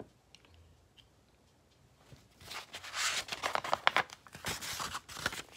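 A picture book's paper page being turned by hand, rustling in quick crackles that start about two seconds in.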